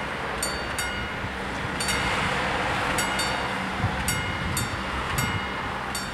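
Two level-crossing bells ringing out of step with each other, giving irregular single strikes about every half second, over a steady low rumble.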